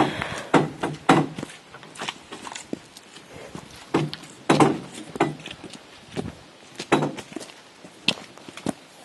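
Footsteps walking on a rocky dirt trail: irregular crunching and scuffing steps, about one or two a second.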